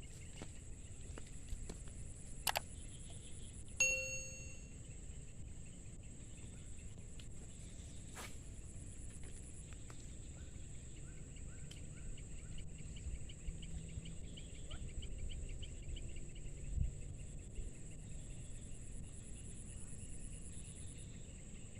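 Open-air ambience: wind rumbling on the microphone under a steady high insect drone, with rapid pulsing insect chirps joining from about halfway through. A short ringing ding sounds about four seconds in, and there are two sharp clicks.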